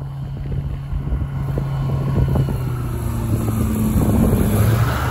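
Light seaplane's piston engine running steadily, slowly growing louder, with wind rumbling on the microphone.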